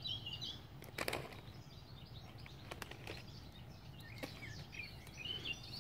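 Birds chirping faintly over a steady low background hum, with a few short taps and rustles in dry grass and leaves as a cat paws at a caught mouse.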